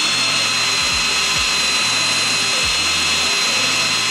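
Cordless drill running steadily with a twist bit boring through the sheet-metal front fender of an R53 Mini Cooper: a constant high whine over a hiss of cutting metal.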